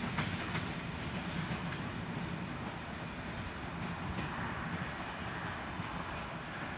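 SNCF Téoz train's passenger coaches rolling away along the track: a steady rumble of wheels on rail, with a few faint clicks over rail joints near the start and again about four seconds in.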